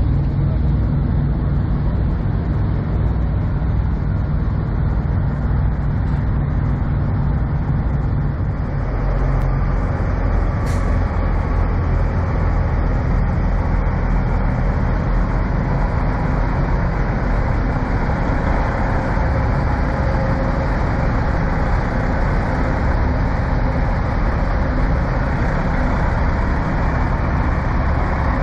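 Diesel engines of parked semi trucks idling, a steady low rumble; the engine note changes about nine seconds in.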